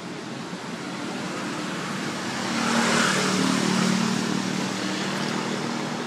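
A motor vehicle passing by, its engine hum and rush swelling to a peak about three seconds in, then fading.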